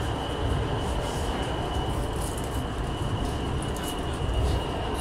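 Steady running rumble of an Orange Line metro train heard from inside a moving car, with a thin steady high whine over it.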